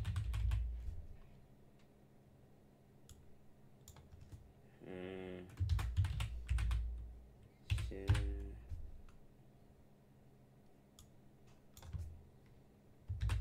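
Computer keyboard being typed on in several short bursts of keystrokes separated by pauses.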